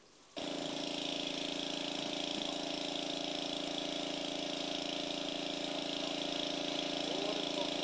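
A small engine running steadily at an even idle, with a hiss over it. It cuts in sharply about a third of a second in.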